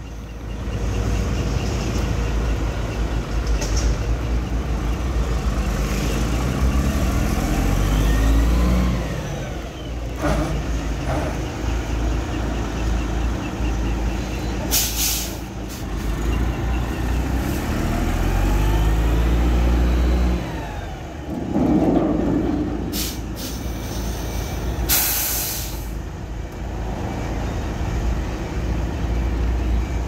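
Heavy diesel engine of a Sany concrete mixer truck running while manoeuvring, revving up and falling back twice. Sharp hisses of air from the air brakes about halfway through and again near the end.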